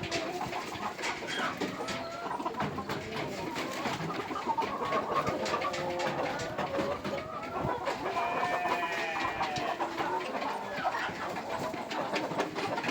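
A flock of chickens clucking and calling over one another, many short calls overlapping throughout, with scattered light clicks among them.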